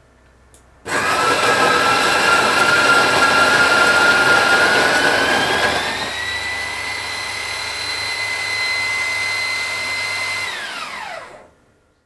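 Wilfa Svart electric coffee grinder switched on and running. It starts abruptly with a loud, rough grinding noise under a steady motor whine. About six seconds in, the whine rises in pitch and the rough noise thins out. Near the end the motor cuts off, and the whine falls in pitch as it spins down to a stop.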